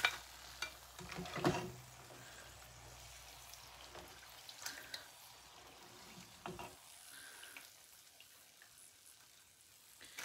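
Hot oil sizzling faintly as namak para dough strips deep-fry in a pan. A few light knocks and scrapes of a slotted spoon against the pan and plate as the golden pieces are lifted out to drain.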